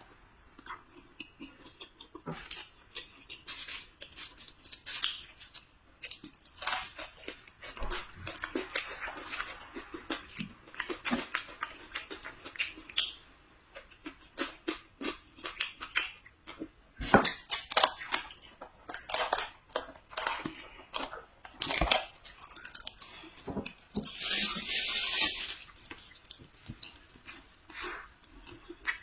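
Close-miked eating sounds: chewing and biting of a steamed bun, with scattered small clicks and clinks of tableware. Near the end comes a brief, louder hissing noise.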